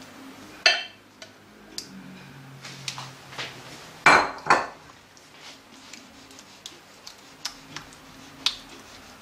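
A spatula clinking and scraping against a glass bowl as thick sauce is scraped out, with scattered light clinks. Two sharp knocks about half a second apart, about four seconds in, are the loudest sounds.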